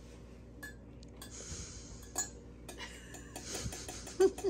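A spoon stirring coffee in a mug, with light clinks and soft swishing against the sides. A short laugh comes near the end.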